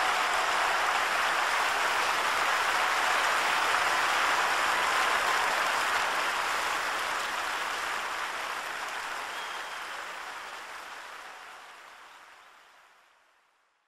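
Live concert audience applauding, a dense, even clatter of clapping that holds steady and then fades out over the last several seconds.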